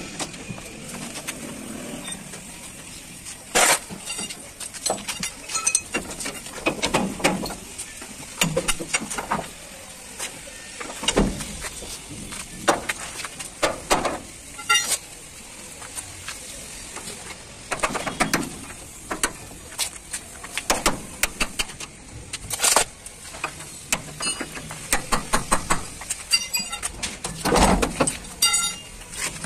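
Irregular metal-on-metal knocks and clanks, some briefly ringing, from a steel bar and hammer striking a truck's leaf-spring shackle and hanger bracket while it is worked loose.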